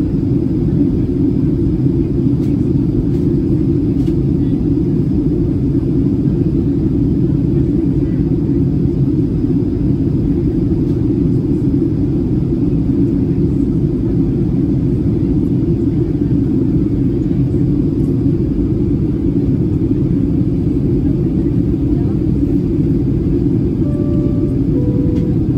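Steady low cabin drone of a Boeing 737-800 in flight, from airflow and its twin CFM56-7B26 engines, heard from a window seat beside the wing. Near the end a two-note falling cabin chime sounds.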